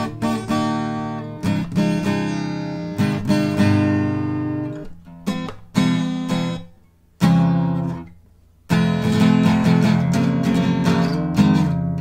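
Acoustic guitar strummed with a pick, full chords ringing. A little past halfway the strumming stops twice, letting a single chord ring out and fade before the playing picks up again. Recorded through a stereo condenser mic on its auto gain setting, which holds the loud strumming below peaking.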